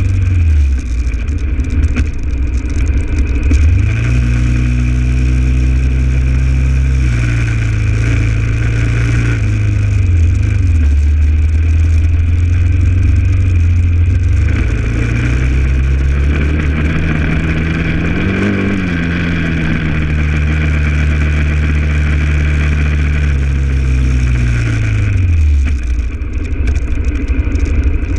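2008 Honda XR650L's single-cylinder four-stroke engine under way, its pitch rising and falling with the throttle: it drops right at the start, climbs in steps to its highest about two-thirds through, then falls away near the end. Wind rushes over the microphone.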